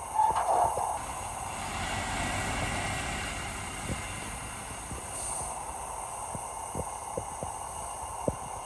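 Heavy earthmoving machinery running: a steady diesel rumble with scattered light clicks and knocks. There is a brief louder clank just after the start, and the engine noise swells for a couple of seconds about two seconds in.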